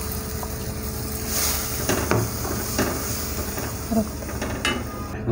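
A wooden spatula stirring a thin urad dal mixture in a metal kadhai, knocking against the pan a few times, over a steady sizzling hiss from the mixture cooking on low heat.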